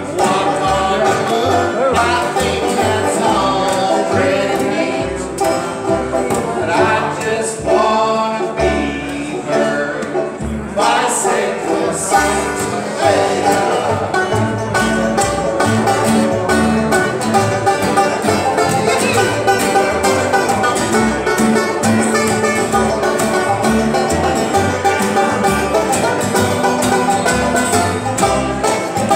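Bluegrass trio playing live on banjo, acoustic guitar and upright bass, the banjo prominent over a steady bass line.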